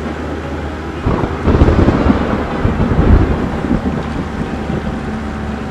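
Thunder rumbling, a cartoon storm sound effect, which comes in about a second in over a steady low hum.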